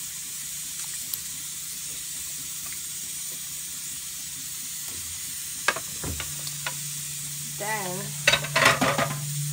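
Steady hiss from a pot of water heating on the stove, with a few clicks and knocks as fish fillets are slid off a ceramic plate into it. A louder clatter of plate and pot comes near the end.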